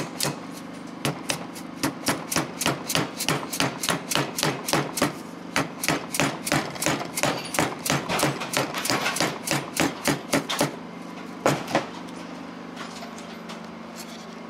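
Mallet tapping a grease seal down into a brake rotor hub, seating it over the wheel bearing: a quick run of sharp knocks, about three or four a second, for some ten seconds, then two last strikes before it stops.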